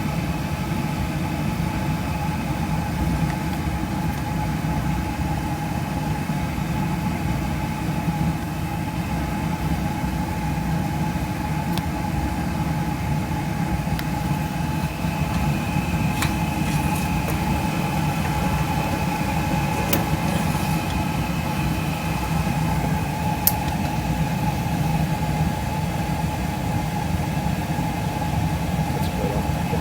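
Beckett oil burner firing on a boiler: the blower motor and flame give a steady hum and rumble, with a few light clicks in the second half.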